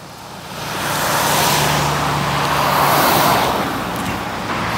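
Road traffic: a car drives past. Its tyre and engine noise swells over the first second and a half and eases off slightly toward the end.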